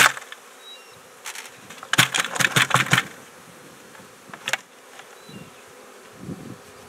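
Honey bees buzzing around an open nuc box, with a quick run of about eight knocks on the plastic bee-vacuum bucket about two seconds in, bumping the last bees out of it.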